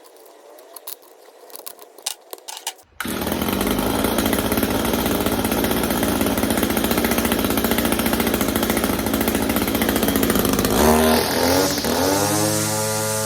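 A few light clicks and taps, then about three seconds in the two-stroke engine of an Echo SRM string trimmer runs steadily after starting on the first pull, now on a new NGK spark plug. Near the end it revs up and down with the throttle. It is running again after a no-start that the owner traces to a faulty off-brand spark plug.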